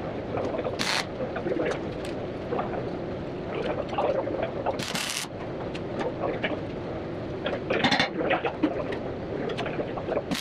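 Short bursts of welding-arc crackle, tack welds on a steel bracket, three of them: about a second in, about five seconds in and about eight seconds in, each roughly half a second long, over a steady background of shop noise.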